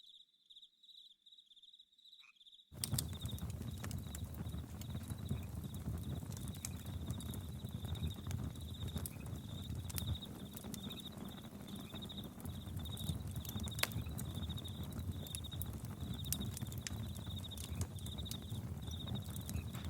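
Campfire crackling and popping over a low rumble, with crickets chirping steadily throughout. For the first few seconds the fire drops out, leaving only faint cricket chirps, then it resumes abruptly about three seconds in.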